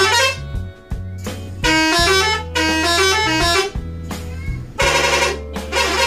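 Telolet multi-tone horn playing short tunes, several notes sounding together and stepping up and down, in about four bursts over a low hum that stops and starts.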